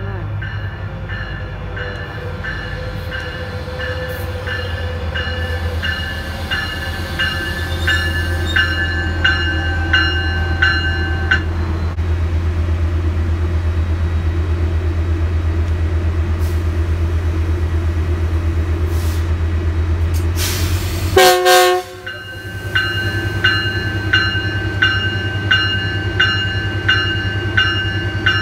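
Metrolink F125 diesel locomotive's engine running with a steady low hum as the train pulls in and stands, while a bell rings steadily about twice a second for the first ten seconds or so and again over the last five. About three-quarters of the way through, one short loud blast of the train horn.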